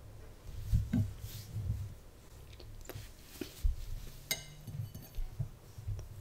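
A metal spoon clinking and scraping in a ceramic bowl of rice, with one sharp ringing clink about four seconds in. Dull low thumps at the table come and go around it.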